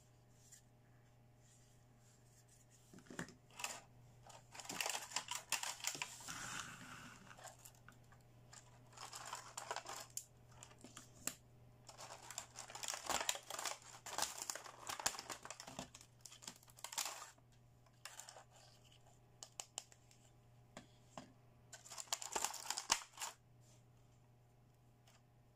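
Clear plastic blister packaging crinkling and crackling as small plastic toy pieces are worked out of their moulded tray, in four spells with small plastic clicks, quiet in between.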